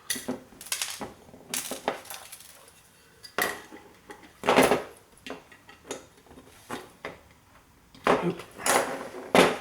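Metal tools and hard drive parts clinking, scraping and knocking irregularly as the drive is taken apart. The loudest knocks come about four and a half seconds in and in a cluster near the end.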